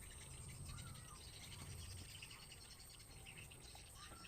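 Quiet rural background: a steady high-pitched insect drone, with two short, faint bird chirps, one about a second in and one near the end.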